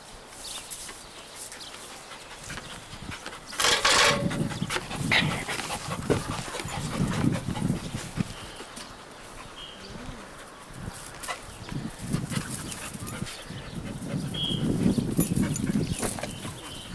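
Dog panting close to the microphone, out of breath from chasing a frisbee, in repeated low pulses. A brief loud rustling noise comes about four seconds in.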